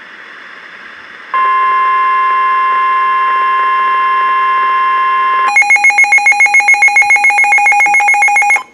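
Emergency alert tones on a weather radio broadcast: after about a second of faint radio hiss, a steady alert tone sounds for about four seconds, then switches to a rapidly pulsing alarm beep, several pulses a second, for about three seconds before cutting off.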